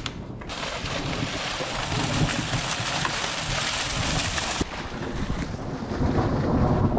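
Water gushing and spraying from a broken PVC water line, a steady hiss. About four and a half seconds in it gives way to wind blowing on the microphone.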